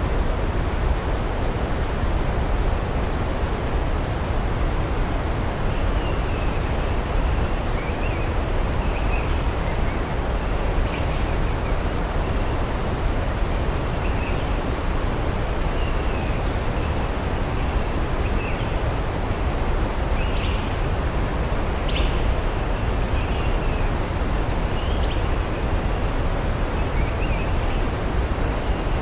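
Waterfall rushing steadily, a dense even roar of falling water. Faint distant birds chirp now and then from about six seconds in.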